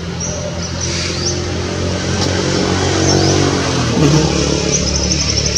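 A motor vehicle's engine running steadily, growing louder toward the middle and shifting pitch about four seconds in. Small birds chirp high above it, with a quick run of chirps near the end.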